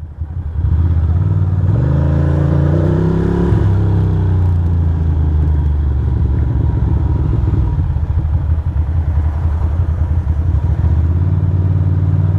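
Ducati Monster's V-twin engine under way: it revs up about two seconds in, then runs steadily at a constant pace.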